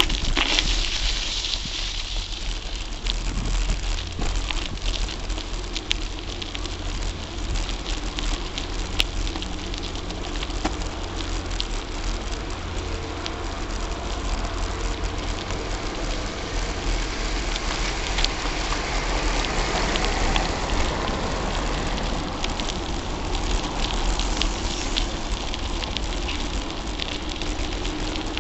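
Gary Fisher Tassajara mountain bike riding along rough, gritty streets: a steady crackling hiss of tyres on the road surface with a constant low rumble. Small knocks and rattles come through the handlebar-mounted camera.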